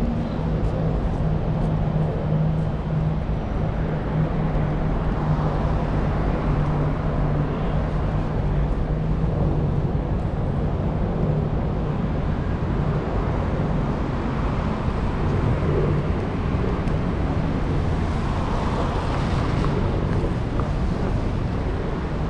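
Steady city street traffic: a constant low engine hum with tyre and road noise from passing vehicles.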